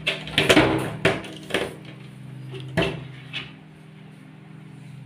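Wire pet cage rattling and clanking as a kitten climbs and pushes against its bars: a quick run of clatters, then two lone knocks about three seconds in, over a steady low hum.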